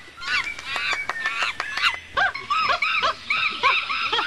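Monkeys calling: a rapid run of short, high, arching squeaks and chirps, several overlapping at once.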